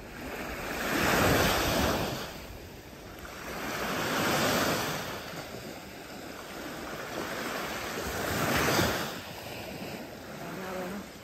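Small lake waves washing up onto a sandy beach, three of them swelling and ebbing a few seconds apart.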